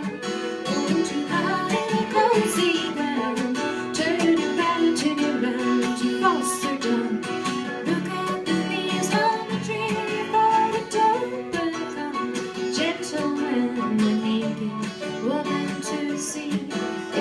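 Acoustic folk band playing, led by a strummed and picked acoustic guitar, with a sliding melody line over it.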